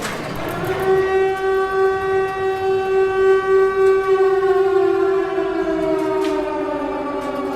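Civil defense siren winding up within the first second to a steady pitched tone, then slowly sliding down in pitch during the second half.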